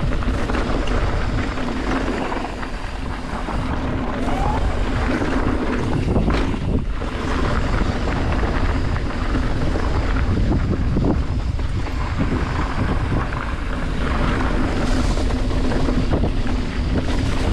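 Mountain bike riding fast downhill on a loose gravel trail: wind buffeting the microphone over tyre roar and bike rattle, with a few sharp knocks from bumps and landings.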